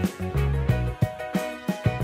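Background music with a steady beat: plucked or guitar-like melody over a bouncing bass line.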